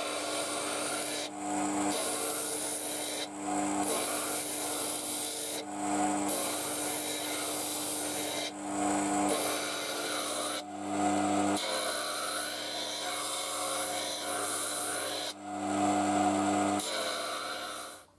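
Steel knife blade ground against the face of a spinning disc grinder: a steady rasping grind over the motor's hum, easing off briefly every two to three seconds as the blade is lifted and set back on the disc.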